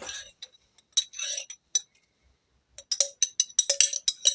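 A metal spoon clinking and scraping against glass as minced garlic is scooped and knocked out of its jar: a few single clinks and a short scrape, a pause, then a quick run of ringing taps near the end.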